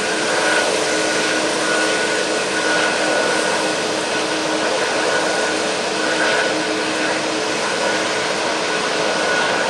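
Boeing 737 freighter's CFM56 turbofans running at taxi power: a steady rushing whine with a high held tone over lower hum.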